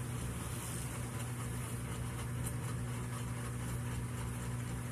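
A steady low hum that holds unchanged throughout, with no sudden sounds standing out.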